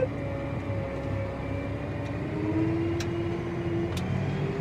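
John Deere 8285R tractor's diesel engine running under load, heard from inside the cab as a steady drone with a steady whine. Two sharp ticks come about three and four seconds in.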